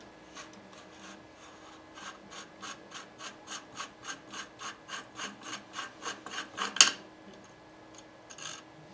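Muzzle device being unscrewed by hand from the threaded end of an AR-15 barrel: a quick, regular rasping of the threads, about five strokes a second, ending in one louder click.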